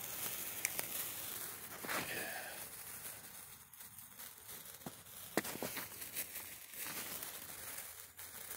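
Bamboo-stick gold sparkler burning, a soft fizzing with scattered sharp crackles as it throws sparks.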